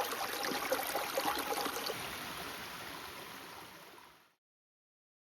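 River water running and trickling over stones, fading away over about four seconds.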